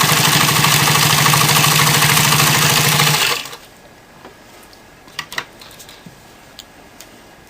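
Pfaff 230 sewing machine running fast, stitching steadily through four layers of canvas without bogging down, then stopping suddenly about three seconds in. A few faint clicks follow.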